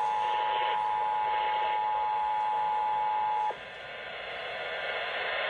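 Emergency Alert System attention signal: the steady two-tone alarm, heard over radio, cutting off abruptly about three and a half seconds in and leaving faint radio hiss.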